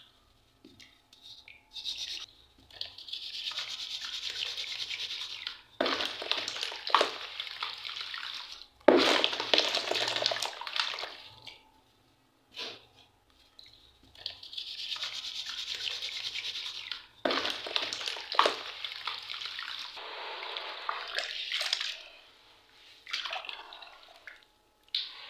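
A crumbling charcoal bar being broken and rubbed apart by hand into a basin of water: gritty crackling and rubbing mixed with splashing and sloshing. It comes in spells of a few seconds with short pauses, including a longer quiet pause about halfway through.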